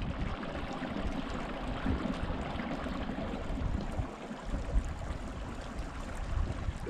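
Glacial meltwater stream flowing over rocks between the ice, a steady rush of running water.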